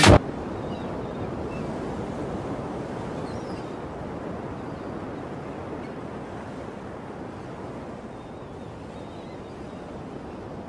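Ocean surf washing steadily on a shore, slowly fading. Electronic music cuts off abruptly at the very start.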